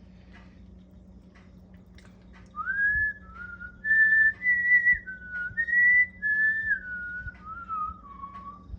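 A person whistling a short tune: about a dozen clear held notes that move up and down and end on a falling phrase, starting a couple of seconds in.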